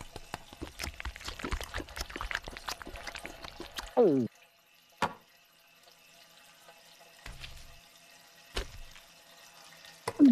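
Cartoon sound effects: about four seconds of rapid, wet clicking and dripping sounds, ending in a short, loud falling glide. Then a few scattered single knocks over near quiet.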